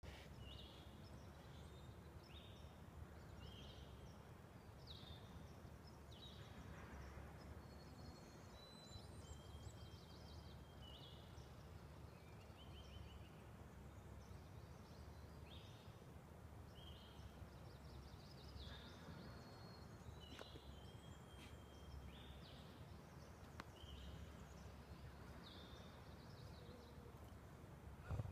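Faint birdsong: short calls repeating every second or two, with a few thin whistled notes mixed in, over a steady low rumble. A brief bump near the end.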